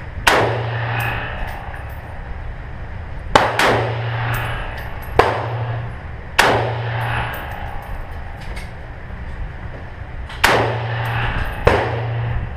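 Rifle firing single shots down an indoor concrete range lane: six loud reports at uneven gaps of one to four seconds, each with a short ringing echo, and a few fainter cracks in between.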